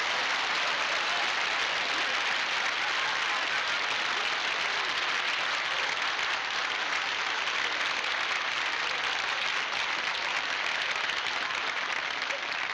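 Studio audience applauding steadily, without a break.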